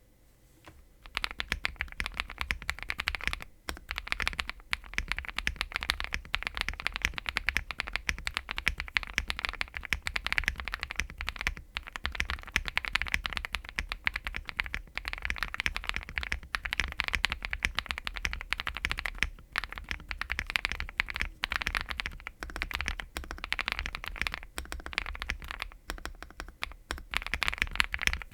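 Continuous fast typing on a Zoom75 custom mechanical keyboard with factory-lubed Invokeys Matcha Latte switches, a polycarbonate plate and full foam. Dense, rapid keystroke clicks start about a second in, with a few brief pauses.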